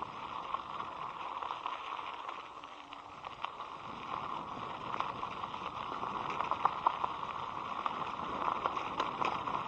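Steady hiss of wind and road noise while riding an electric scooter, picked up by a helmet-mounted action camera, with scattered small clicks and knocks. It eases briefly a couple of seconds in, then picks up again.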